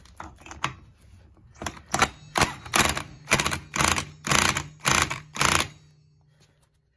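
Cordless impact wrench tightening the nut on a Honda Helix scooter's clutch assembly, with its motor running. The trigger is pulsed in short bursts of hammering, about two a second, starting about a second and a half in and stopping near the end.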